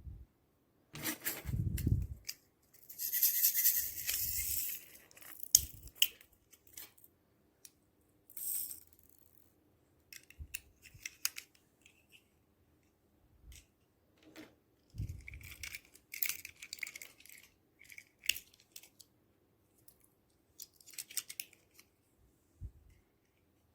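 Slime being handled and mixed by hand: irregular sticky crackles, clicks and squishy bursts, with a few soft low thumps.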